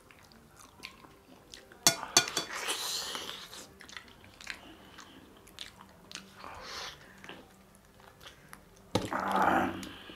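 Close-up eating sounds of mutton curry with rice being bitten and chewed: scattered small clicks, a run of sharp crunchy clicks about two seconds in, and a louder wet burst near the end.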